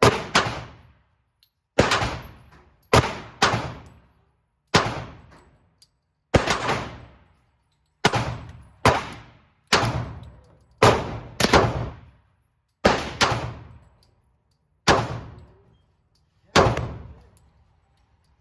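Pistol fired one shot at a time at an uneven, unhurried pace, about fourteen shots, each with a short echoing tail.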